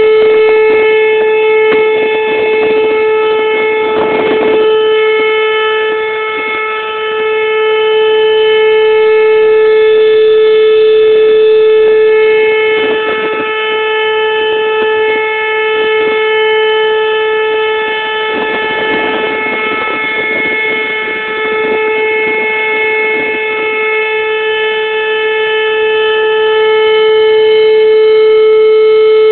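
Whelen electronic outdoor warning siren sounding a steady, unwavering alert tone with a stack of overtones. Its loudness swells and fades over several seconds.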